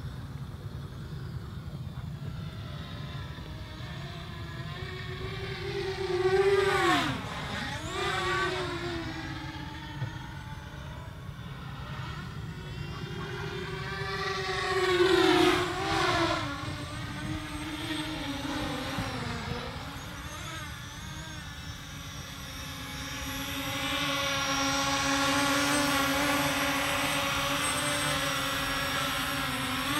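FPV racing quadcopter's electric motors and propellers whining as it flies, the pitch rising and falling with the throttle. It makes two loud close passes about 7 and 15 seconds in, the pitch dropping sharply as it goes by. From a little past the middle the whine is steadier and louder.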